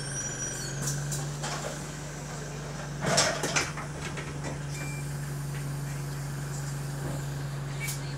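Idling engine of Go-Ahead London bus SE129, whose exhaust is burst, running as a steady low hum while the bus waits at a stop. About three seconds in there is a short, loud burst of noise.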